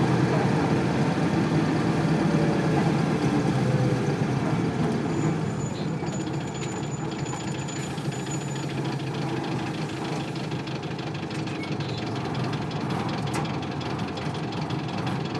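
Onboard sound of a 1998 Isuzu Cubic bus's 8PE1 V8 diesel engine running. It eases down about five seconds in and then runs lower and steadier with a faint regular ticking. A thin high tone sounds briefly around the middle.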